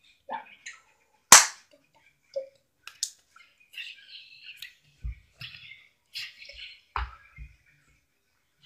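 A single sharp smack about a second in, the loudest sound, then a few softer clicks, some dull low thumps and breathy hissing.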